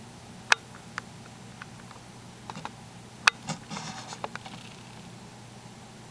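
A few sharp clicks and taps, the loudest about half a second in and just past three seconds, with a brief rustle soon after, over a low steady hum: handling noise.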